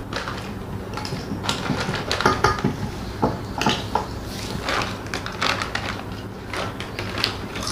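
Potato chips clinking and rustling in small steel bowls as they are picked up by hand, then crisp crunching as they are bitten and chewed: an irregular run of sharp clicks and crackles.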